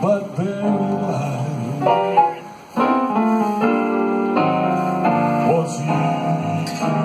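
Live band music with a piano-like keyboard to the fore, played over PA speakers; it breaks off briefly about two and a half seconds in.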